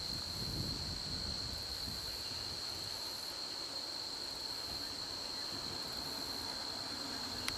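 Steady high-pitched chorus of insects chirring, with a low rumble that fades out over the first few seconds and a single click near the end.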